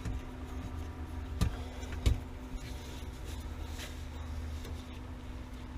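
A steady low mechanical hum, with two short sharp knocks about a second and a half and two seconds in.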